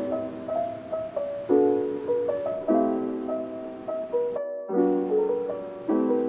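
Background piano music: chords struck about once a second, each fading before the next, with a brief dropout about four and a half seconds in.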